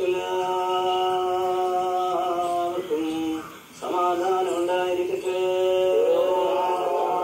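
Priest chanting a liturgical prayer in long, held sung notes, with a short pause about three and a half seconds in before the chant resumes.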